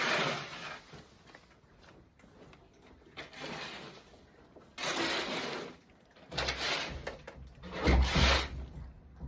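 Scraping and rubbing strokes from cleaning work, four or five noisy strokes of about a second each. The last and loudest, near the end, has a low thudding rumble under it.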